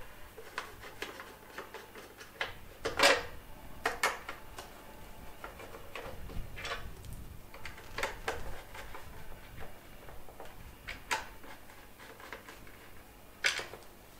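Screwdriver turning out screws on an air compressor's plastic switch housing: scattered small clicks, taps and scrapes, the loudest about three seconds in and again near the end.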